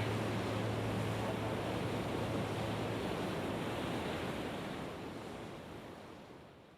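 Steady rushing noise, with a low hum underneath that dies away about four seconds in. The whole sound then fades out near the end.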